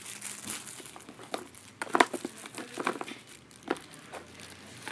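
Packaging being handled and crinkled during an unboxing, with several sharp clicks and knocks; the loudest comes about two seconds in.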